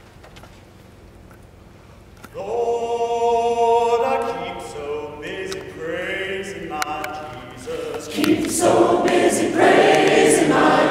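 Quiet room tone for about two seconds, then a male soloist starts a gospel spiritual, singing long held notes alone. The mixed choir joins in, louder, about eight seconds in.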